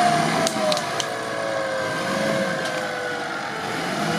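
An off-road vehicle's engine running under load, its pitch slowly dropping, with a few light clicks about half a second to a second in.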